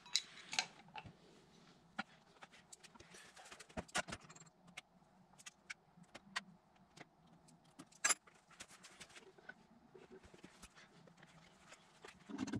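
Small hand tools and loose parts being picked up and set down on a workbench: scattered faint clicks and clinks with light rustling. The sharpest clack comes about eight seconds in.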